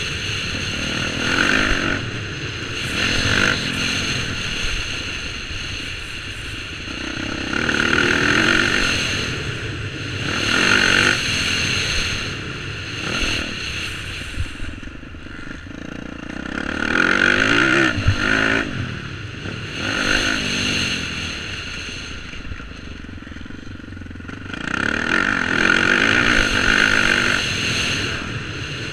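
Dirt bike engine heard from on board, revving up and backing off in repeated surges as the bike is ridden round a motocross track.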